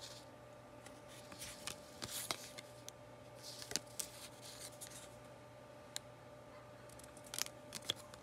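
Paper ephemera pieces, cardstock cards and a die-cut paper frame, being handled: faint rustles and light clicks of paper against paper and fingernails, with a few brief swishes as pieces slide past each other.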